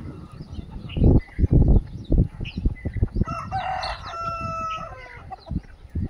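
A rooster crowing once: a drawn-out crow of under two seconds, starting about three seconds in, that holds one note and then falls away. Before it, a few heavy low thumps are the loudest sounds.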